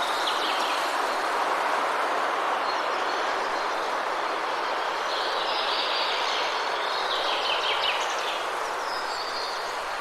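Birds chirping faintly over a steady rushing background noise; the chirping is busiest from about five to eight seconds in.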